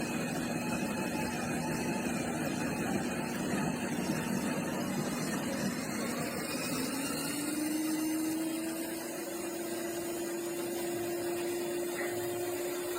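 A small motor or pump running with a steady hum that rises slightly in pitch about seven seconds in and then holds.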